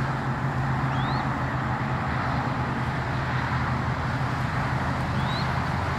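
Steady low hum and rush of a motor vehicle running, even throughout, with two brief high rising chirps, one about a second in and one near the end.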